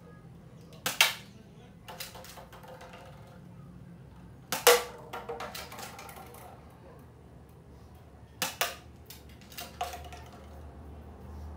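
Air rifle firing pellets in a series of sharp cracks: one about a second in, another near two seconds, the loudest near five seconds, and two more between eight and ten seconds. Several shots are followed closely by a second, fainter crack.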